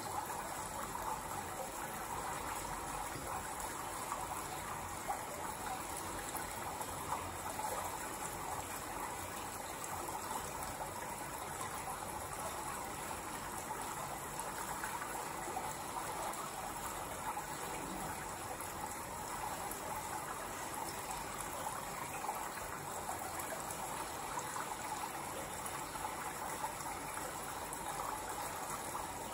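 A steady rushing noise, strongest in the midrange, with a fine crackle through it.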